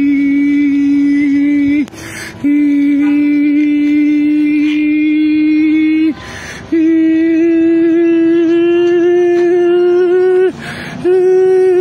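A man's voice holding long, steady, droning notes, about four seconds each, broken by a quick breath in between them; each new note starts a little higher than the one before.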